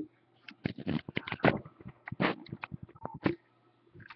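A quick, irregular run of sharp clicks and taps for about three seconds, then it stops.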